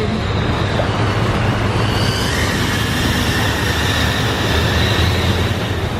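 Vehicle driving in heavy rain: a steady low rumble of engine and tyres under a dense rushing noise of rain and water.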